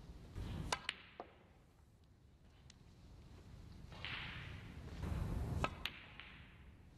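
Snooker cue striking the cue ball and balls clicking together in two shots: a few sharp clicks just under a second in, and more near six seconds, each with the low rumble of balls rolling on the cloth.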